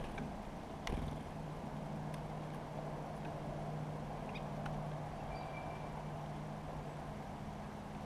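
Small birds at a sunflower-seed feeder: scattered small clicks and taps of birds landing, hopping and pecking among the seed shells, the sharpest about a second in. A short high bird note about five seconds in, over a steady low hum.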